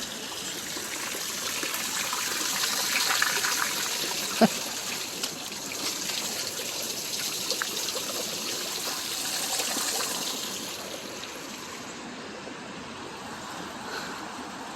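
Floodwater rushing steadily in a swollen creek, swelling louder for several seconds in the middle and then easing. A single sharp click about four seconds in.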